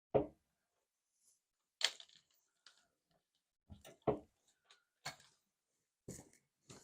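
A scattering of short knocks and clunks, about seven, irregularly spaced, from tools and materials being handled at the wall.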